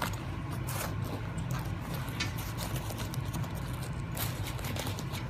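Oxford-fabric laptop backpack being handled and zipped shut: short clicks and scrapes of the zipper and fabric, over a steady low hum.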